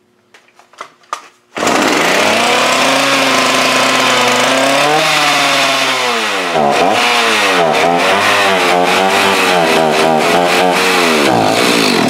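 Husqvarna chainsaw's two-stroke engine starting about a second and a half in and running, its crankshaft seal freshly reseated, though compression is only fair. It runs steadily at first, is then revved up and down several times, and shuts off just before the end.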